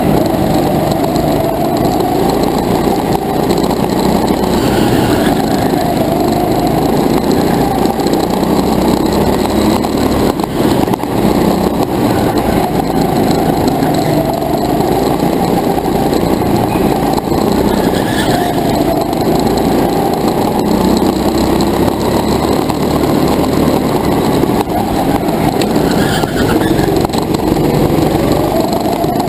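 Go-kart engine running hard, heard from a camera mounted on the kart, its pitch rising and falling with the throttle through the corners and climbing near the end.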